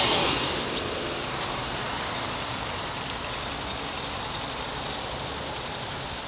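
Steady vehicle running noise, easing down from a louder swell in the first second and then holding level.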